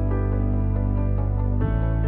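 Background music: soft, sustained new-age style chords, changing chord about two thirds of the way through.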